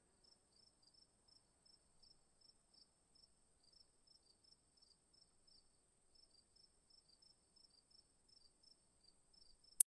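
Faint insect sound: a cricket chirping in short regular pulses about three times a second over a steady high-pitched trill. A sharp click near the end cuts it off.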